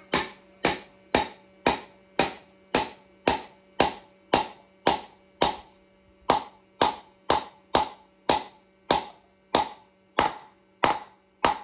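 Steady hammer blows, roughly two a second, each ringing briefly, driving new Timken tapered bearings into a motorcycle wheel hub. The bearings have been frozen overnight to shrink them for the fit.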